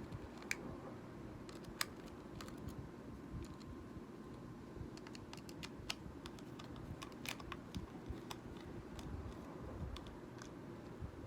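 Scattered light clicks and taps of small plastic parts being handled, irregular and a second or so apart, over a low steady hum.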